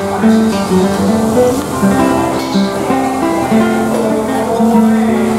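Background music: acoustic guitar playing a melody with chords.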